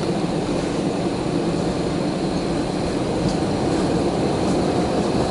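Steady jet engine and airframe noise heard from inside an Airbus airliner's cabin, engines at low power before the takeoff run.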